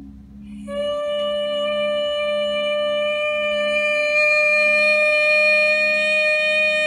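A single high, pure-sounding tone with rich overtones starts about a second in and is held steady, over a low pulsing drone: a sound-healing 'light tone'.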